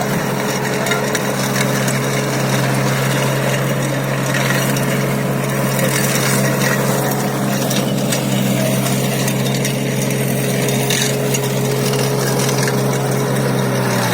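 Atom mini tractor engine running steadily while driving a sugarcane stubble shaver: a constant engine hum under a rough, gritty noise with scattered clicks.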